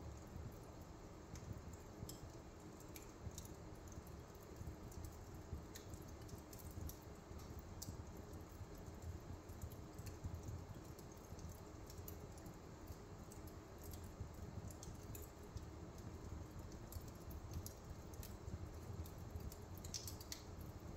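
Wood fire burning on a fireplace grate: a faint low rumble with scattered soft crackles and pops, a few coming close together near the end.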